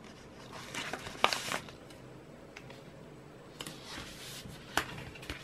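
Quiet paper and cardboard handling: round stickers peeled from a sheet and pressed onto cardboard mailer envelopes, with scattered soft rustles and a few light taps.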